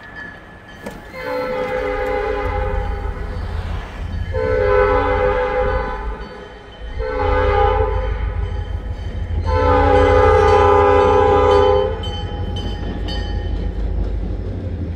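Diesel locomotive horn sounding the grade-crossing signal, long, long, short, long, with the last blast the loudest. Under it the locomotive's engine rumbles as it draws up to the crossing.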